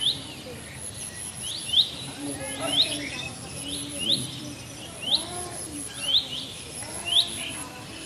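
A bird repeating a short, sharp rising chirp about once a second, sometimes two in quick succession.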